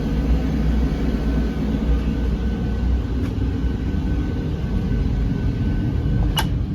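Old steam boiler's burner running with a steady low rumble and a faint steady whine, with a sharp click near the end. The boiler won't shut off, which the technician traces to a failed thermostat with a broken wire.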